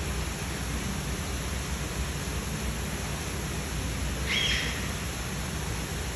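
Steady rushing background noise, even and unbroken, with one short high-pitched bird chirp a little past the middle.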